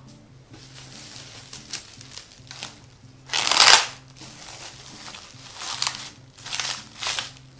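Plastic cling film crinkling and rustling as it is pulled over a glass bowl of dough and pressed down around the rim, in several short bursts, the loudest about three and a half seconds in.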